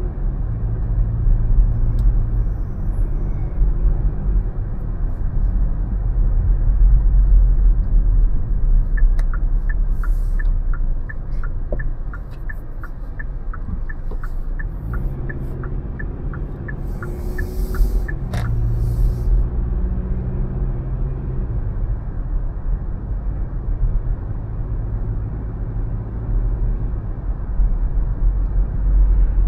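Car driving on city streets: steady engine and road rumble, with the turn-signal indicator ticking about twice a second for some ten seconds in the middle as the car makes a turn. The engine pulls harder again after the turn.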